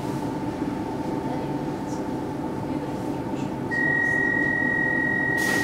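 Stockholm C14 metro train standing at a station, heard from inside the carriage, its electrical and ventilation equipment humming steadily. About two-thirds of the way in a steady high warning tone begins, and just before the end a loud hiss of air sets in as the doors start to close.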